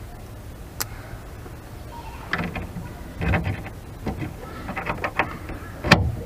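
Hand screwdriver driving the screw of a gas-strut ball-stud mount into a wooden deck frame: a series of clicks and scrapes, with a sharp knock near the end.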